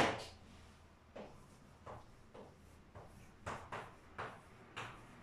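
Chalk on a blackboard as words are written: one sharp knock at the start, then a string of short taps and strokes, coming a little faster in the second half.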